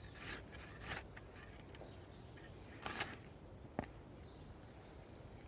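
Faint rustling and scraping of soil and sweet potato roots being dug and pulled by hand, in a few short bursts, with one sharp click about four seconds in.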